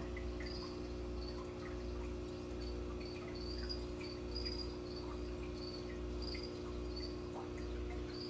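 Steady hum with a low throb pulsing about once a second, under a short high chirp that repeats about twice a second.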